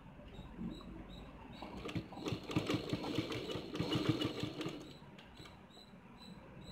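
Sewing machine stitching a short run of about two and a half seconds, a fast even rhythm of needle strokes that starts about two seconds in and stops near five seconds. Light handling of the fabric under the presser foot before and after.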